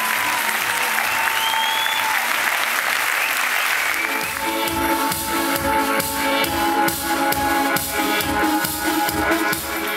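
Audience applause over electronic keyboard music for about the first four seconds. After that the music comes through on its own with a steady beat about twice a second.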